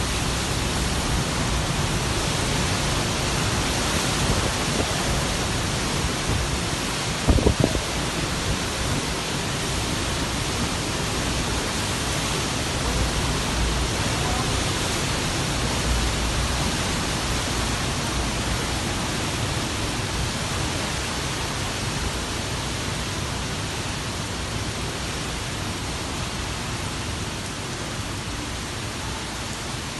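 Typhoon wind and heavy driving rain making a steady, rushing roar. A brief clatter of a few sharp knocks comes about seven seconds in.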